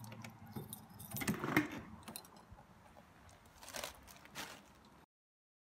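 Keys clinking and a door lock and metal lever handle clicking as a door is unlocked and opened, followed by a couple of short rustles near the end. The sound cuts off abruptly about five seconds in.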